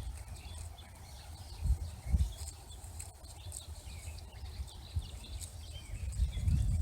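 Small birds twittering in short high chirps over a pasture, with a low rumble and a few dull low thumps, the strongest a little under two seconds in, just after two seconds, and near the end.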